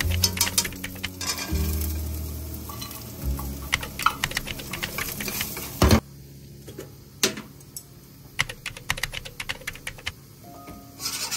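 Quick, irregular light clicking and tapping of kitchen utensils during cooking, with some sizzling. Background music plays under it and drops away about halfway through.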